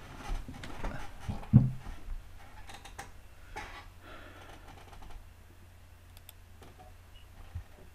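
Computer keyboard typing in short runs of keystrokes, with one dull thump about one and a half seconds in.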